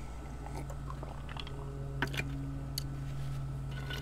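Faint eating and drinking sounds: a man swallowing from a glass, then a few small clicks and wet squishes as his fingers pick at crispy chicken wings, over a steady low hum.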